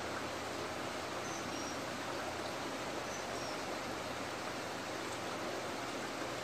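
Steady rushing of water running into an outdoor fish tank from its inflow pipe, with a few faint high chirps about a second and three seconds in.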